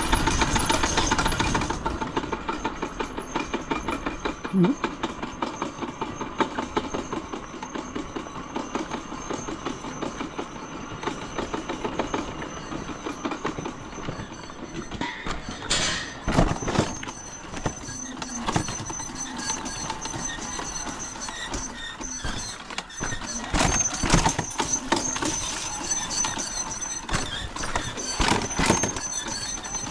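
Vehicle engine running with a fast, heavy rattle whose cause is unknown, and a few louder knocks and clanks in the second half.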